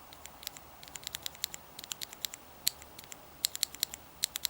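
A Cherry MX Red switch fitted with a PBT DSA-profile keycap being pressed over and over by hand: a string of short, sharp plastic clicks as the keycap goes down and springs back, irregular in timing, with quick runs of several clicks near the middle and towards the end.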